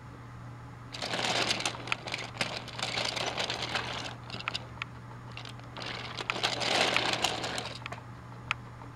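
Plastic toy train pieces rattling and clicking as they are handled and pushed along by hand, in two bursts of about three seconds each, with a single sharp click near the end.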